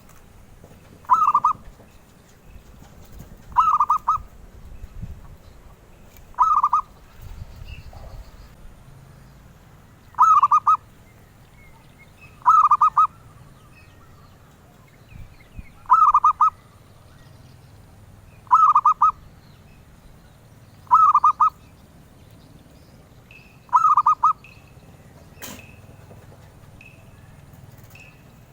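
Zebra dove (perkutut) cooing: a short, pulsed coo repeated nine times, about every two and a half seconds.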